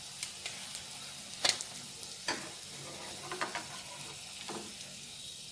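Hot cooking oil sizzling steadily around a gabin fla piece frying in the pan, with several light clicks and taps of metal utensils against the pan, the loudest about a second and a half in.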